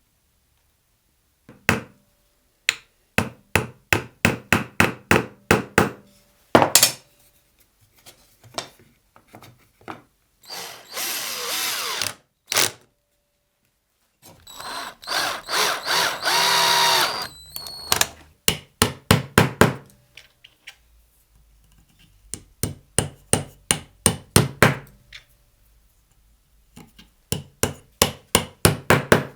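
Runs of hammer blows, a few a second, alternating with two short runs of a power drill driving screws into wood, the second run a few seconds long with its pitch shifting as it loads up.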